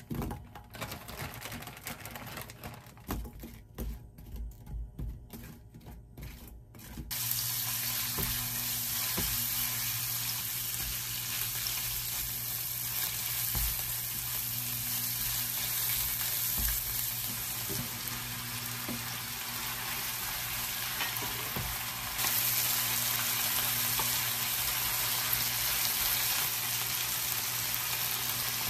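Pork belly slices and vegetables stir-frying in a frying pan, with light taps of the meat and spatula for the first few seconds. A steady sizzle sets in about seven seconds in, with the spatula scraping through it, and the sizzle gets louder about twenty-two seconds in.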